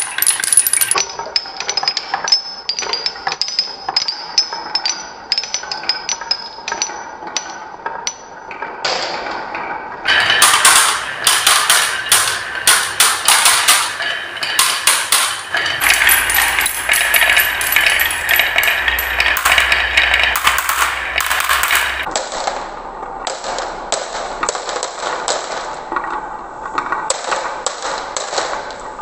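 Glass marbles rolling down the wavy grooves of a wooden marble run: a continuous, irregular rattle of clicks and clacks as they knock against the wood and each other. The clatter turns denser and louder about ten seconds in. Near the end, marbles drop into a plastic toy dump truck's bed already full of marbles.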